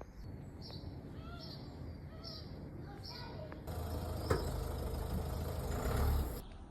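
A bird calling with short arched chirps, about one a second, over faint street background; then a louder, steady noise, like a passing vehicle or wind on the microphone, with one sharp click, which cuts off abruptly near the end.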